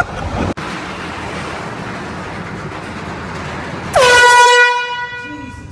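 An air horn blasts once about four seconds in: a single loud, blaring tone that dips in pitch right at its start, holds for about a second, then fades. Before it there is a steady rushing noise.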